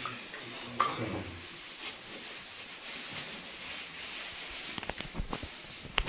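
A low, indistinct voice in the first second or so, then a handful of sharp clicks and knocks near the end, the loudest just before it stops, over a steady hiss.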